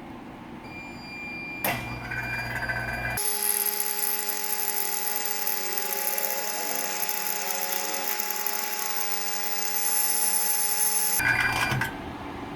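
An air-conditioning service machine's pump runs with a steady mechanical whine as it injects fresh compressor oil into the car's A/C system. The whine starts abruptly about three seconds in, after a sharp click, and cuts off suddenly shortly before the end.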